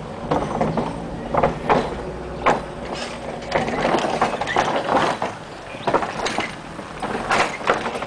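Loose wooden deck planks of an old suspension bridge knocking and clattering irregularly under a car's tyres as it drives slowly across, with a steady low rumble underneath.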